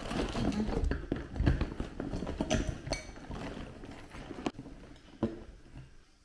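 Handling noise from a black bucket bag being shifted and rummaged on a table: rustling with irregular knocks and taps, growing fainter toward the end.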